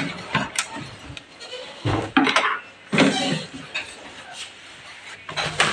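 Cloth dusting a wooden shelf and stereo speakers, with a few light knocks as things on the shelf are bumped and two short vocal sounds in between.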